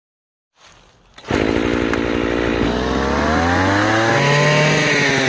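Two-stroke brush cutter engine driving a drill-chuck attachment. It comes in loud about a second in and revs up, its pitch rising over the next couple of seconds, then holds at high revs.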